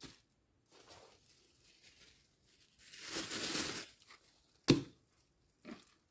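Thin plastic bag crinkling and rustling for about a second as it is handled and pulled open, then one sharp click, with a few fainter knocks near the end.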